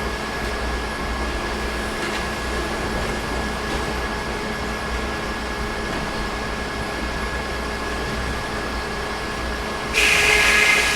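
Sawmill machinery running steadily with a constant hum. About ten seconds in, a louder, higher, hissing noise starts abruptly.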